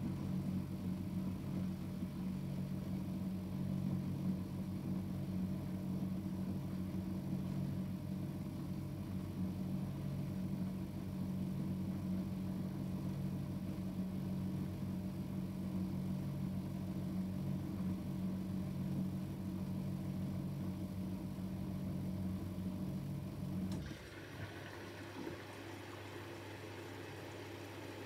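Miele Novotronic W715 front-loading washing machine humming steadily during a rinse. The hum stops suddenly about 24 seconds in, and water starts hissing into the drum as the machine refills.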